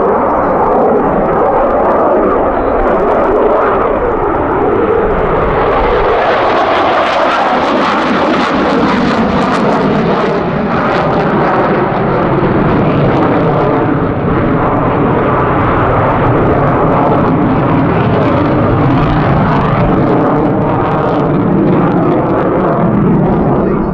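A single-engine F-16 fighter's Pratt & Whitney F100 turbofan at high power during display manoeuvres: a loud, continuous rushing jet noise. It turns harsher and brighter from about six seconds in, then settles again.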